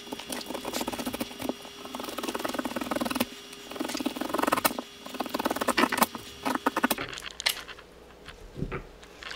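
Knife cutting the kernels off a cob of super sweet corn on a wooden cutting board: a rapid, crackly crunch in spurts as the blade shears down the rows. It thins out after about seven seconds, with a single knock near the end.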